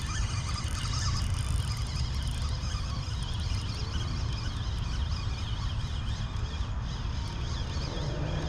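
Steady rushing of river current, with a heavy low rumble throughout.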